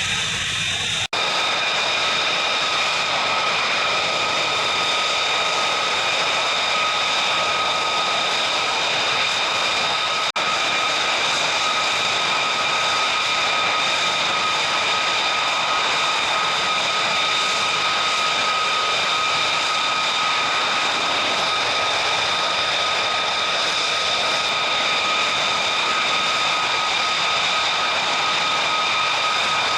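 Military fighter jet engine running with a steady high-pitched whine over a loud rush, as at ground idle or taxi. There are two momentary dropouts, one about a second in and one about ten seconds in.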